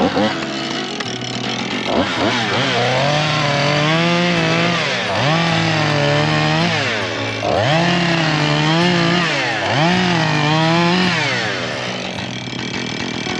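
Two-stroke chainsaw revving up to full throttle and dropping back toward idle about four times, the pitch climbing and falling with each cut through firewood.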